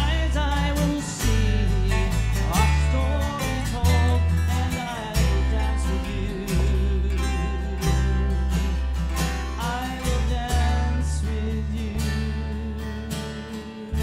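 Live acoustic band playing the slow waltz: strummed acoustic guitars over deep bass-guitar notes, with a strong chord about every second and a quarter.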